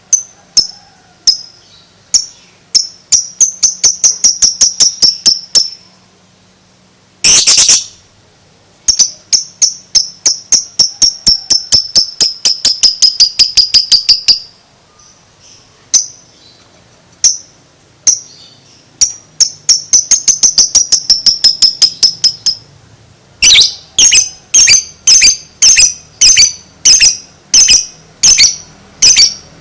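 Lovebird's ngekek: sharp, high chirps that quicken into a fast chattering trill, in three runs of several seconds each. A single loud squawk comes about seven seconds in, and near the end louder calls repeat at about two a second.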